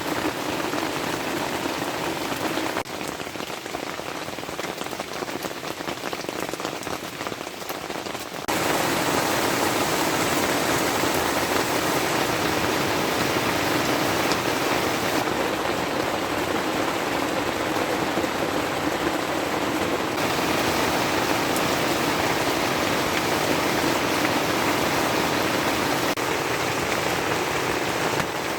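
Steady rain falling, a dense even hiss, which gets abruptly louder about eight seconds in.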